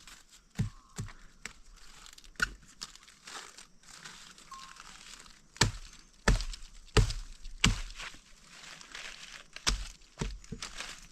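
Irregular sharp knocks and thuds, a dozen or so, with rustling and crinkling in between.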